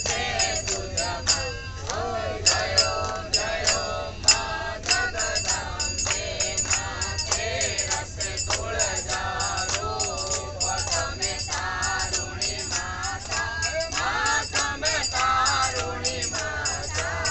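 A group of men and women singing a Hindu devotional bhajan together, with hands clapping in a steady beat.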